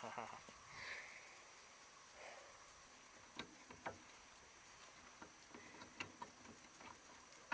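Near silence with a few faint, scattered clicks and light knocks.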